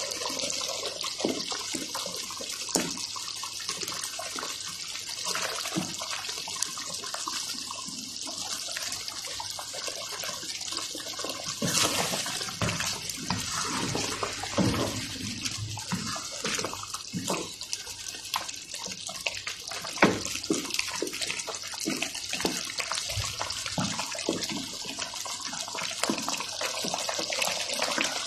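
Creamy chicken and mushroom sauce simmering in a pan: a steady sizzling hiss with many small bubbling pops, and a few sharper pops now and then.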